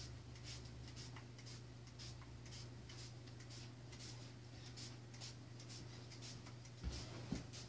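Trigger spray bottle squeezed over and over, short faint hissing sprays about twice a second as a homemade scented sanitizer mix is misted onto carpet. A steady low hum runs underneath, and a couple of soft thumps come near the end.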